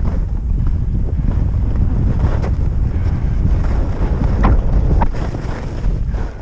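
Wind rushing and buffeting over a GoPro's microphone as a skier descends fast, with skis scraping over chopped, tracked snow in a few sharp strokes. The rush eases near the end as the skier slows.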